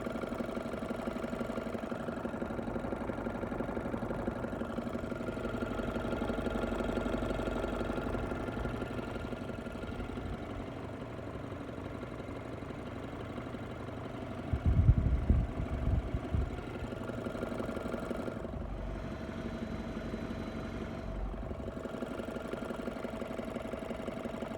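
BMW N20 2.0-litre turbocharged four-cylinder engine idling steadily, with the dull knock the owner complains of. He says it is distinct when warm and weaker when cold. A short cluster of loud, low thumps comes about two-thirds of the way in.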